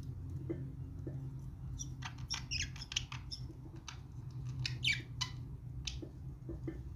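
Budgerigars making short, scratchy chirps during courtship billing, clustered about two to three seconds in and again around five seconds, over a steady low hum.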